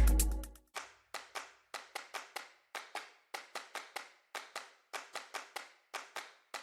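Music fades out within the first second. A sparse run of sharp clap-like percussion hits follows, about three to four a second, each with a short ringing tail.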